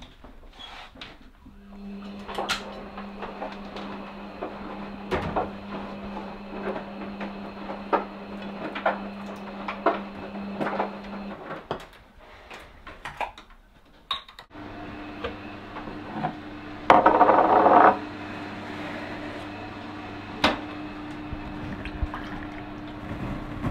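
Kitchen handling sounds: clinks and knocks of dishes, cupboards and containers over a steady hum from a kitchen appliance, which stops about halfway and is followed by a different, lower steady hum. Near the end a short, loud rush of liquid being poured from a plastic jug into a glass.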